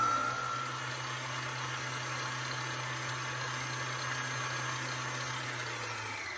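Electric mixer running steadily as it beats confectioners' sugar into a cream cheese and butter frosting, then starting to wind down as it is switched off at the very end.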